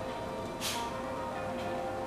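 Background music with held notes, and a short bright hiss about half a second in.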